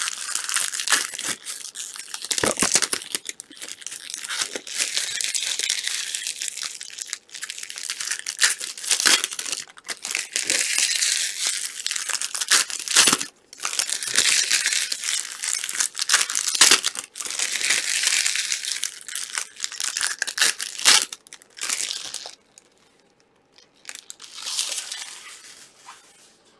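Crinkly plastic wrapping of Panini Select trading card boxes and packs being torn open and crumpled, with many sharp crackles and a short pause near the end.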